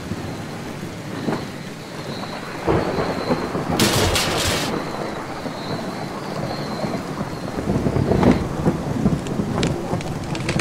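Thunderstorm: steady heavy rain with rolling thunder, swelling about three seconds in and again near eight seconds, and a sharp crackling burst about four seconds in.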